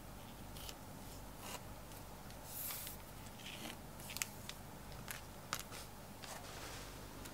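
Scattered small clicks and rustles of stitching thread being handled and drawn taut between the fingers, with a brief louder rustle a little under three seconds in.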